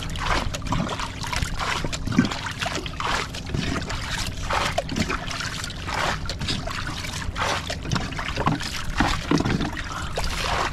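Sea water sloshing and lapping against the hull and outrigger of a small outrigger boat, in irregular surges.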